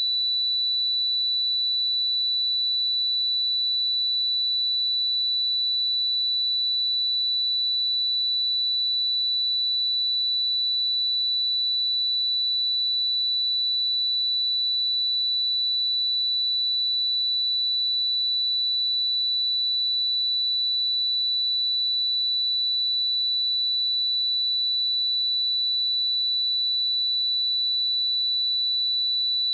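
A pure 3963 Hz sine-wave test tone, held steady at one pitch and level.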